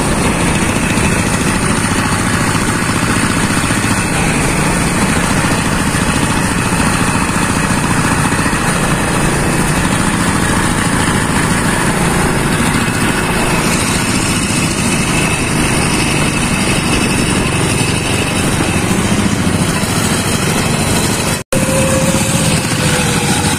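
Diesel engine of a homemade motorcycle running steadily under way.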